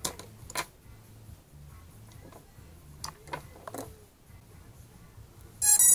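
A few light clicks and taps, then near the end a loud, buzzy electronic beep from the freshly powered drone electronics.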